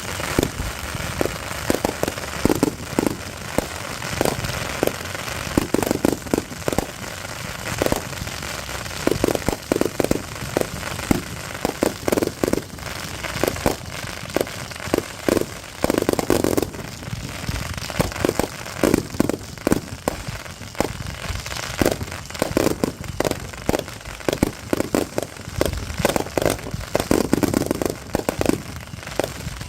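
Consumer fireworks going off in the open: volleys of rapid bangs and crackling, one cluster after another with hardly a pause.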